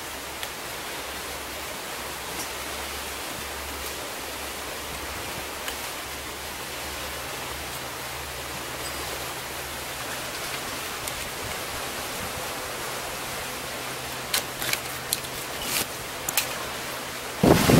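Steady, even hiss of sea water washing over a rocky shore. Near the end come a few sharp clicks as a fishing rod and backpack are handled.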